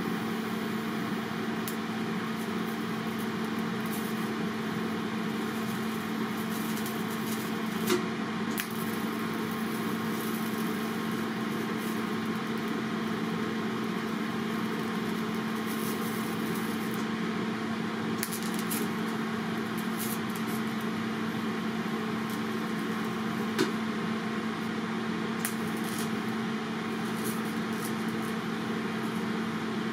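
Electric welding arc on anodized aluminium, a steady buzzing hiss with a couple of brief sharp crackles.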